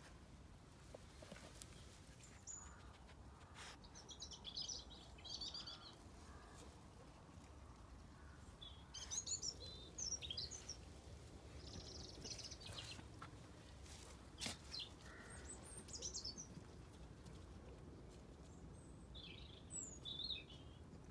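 Small birds chirping in short bursts, a handful of times, over a quiet outdoor background, with a couple of sharp clicks.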